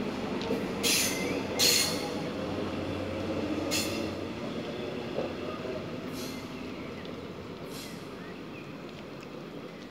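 Red double-deck regional train running out of the station, its steady rumble slowly fading as it moves away. A few short high-pitched wheel squeals cut over it, the loudest in the first two seconds and weaker ones later.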